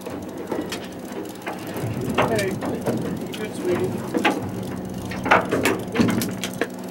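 Fishing reel being cranked to bring in the line, its gears clicking in quick, irregular runs.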